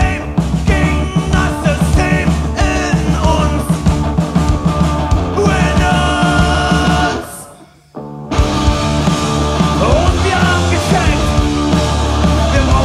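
Live punk rock band playing: distorted electric guitar, electric bass and drum kit, with a singer. About seven seconds in the music dies away into a short gap of under a second, then the whole band comes back in at once.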